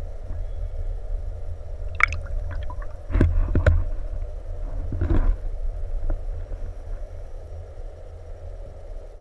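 Water gurgling and sloshing around an underwater camera, with a deep rumble throughout. A few sharp splashy knocks come near the middle, the loudest about three to four seconds in, and the sound fades gradually toward the end.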